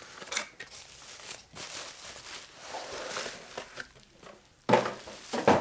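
A cardboard product box and its packing being opened and handled: uneven rustling and crinkling with small clicks, and two louder rustles near the end.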